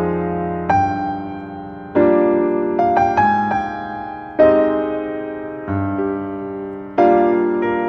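Background piano music: slow chords struck every second or two and left to ring out.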